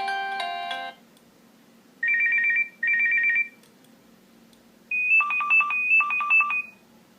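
Nokia 6230i phone tones played through its speaker: the last second of a melodic ringtone, then an alert of two short, fast-warbling two-note beeps, then another alert of rapid high beeps in two groups.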